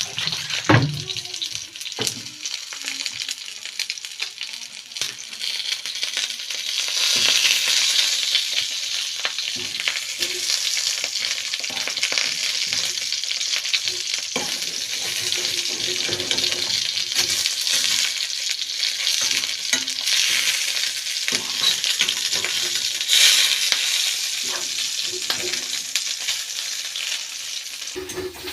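Sausages sizzling as they fry in a pan, with frequent short clicks and scrapes of a utensil moving them against the pan.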